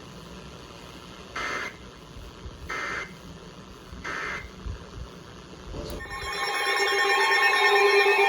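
Three short bursts of EAS data tones, about a second apart: the raspy digital burble of the SAME end-of-message code that closes a weather radio alert. About six seconds in, a warbling electronic alert alarm of several tones starts and grows louder.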